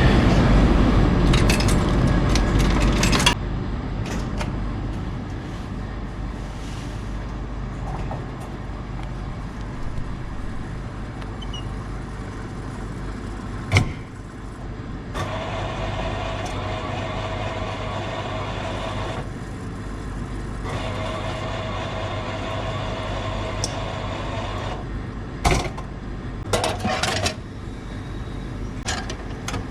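A vehicle running steadily with a low rumble that drops to a quieter, even hum about three seconds in, broken by a few sharp clicks and knocks.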